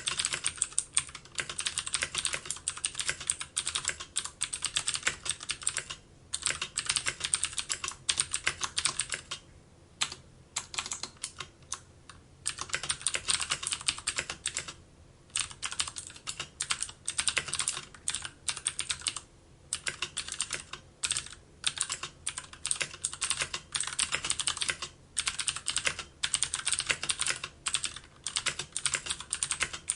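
Computer keyboard being typed on fast and continuously, a dense stream of key clicks broken by brief pauses of under a second.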